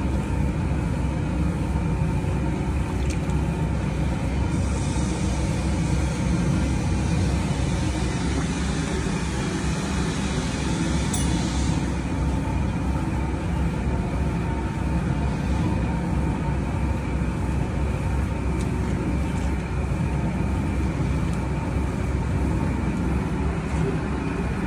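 Cattle-feed powder mixer running steadily, its paddles churning feed in the trough; a continuous low machine hum with no pauses.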